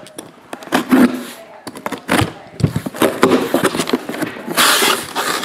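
A taped cardboard shipping case being pulled open by hand: a string of knocks, clicks and rustles from the cardboard flaps and packing tape, with a longer scraping rustle about four and a half seconds in.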